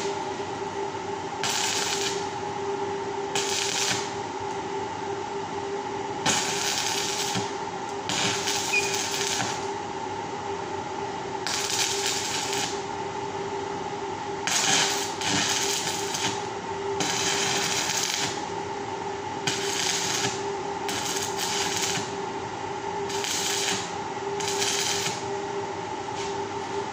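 Electric arc welding: about a dozen short tack welds on the steel wire of a round grill grate, each arc crackling and hissing for half a second to a second, with brief pauses between. A steady hum runs underneath.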